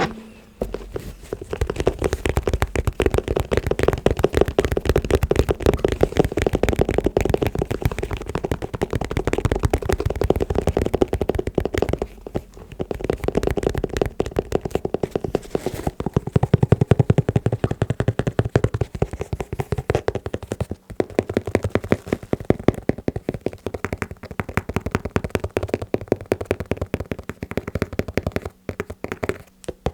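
Fast, continuous tapping on shoes, many taps a second, pausing briefly about twelve seconds in, again about twenty-one seconds in, and near the end.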